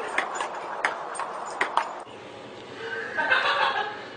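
Table-tennis ball clicking sharply off a table and paddles in a quick rally, about two or three hits a second. The clicks stop about halfway through, leaving a quieter, muffled stretch.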